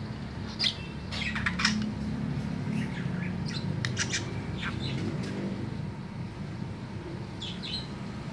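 Budgerigar singing: clusters of short, sharp chirps and clicks over the first four seconds or so, then a quieter spell and a brief pair of chirps near the end, over a steady low hum.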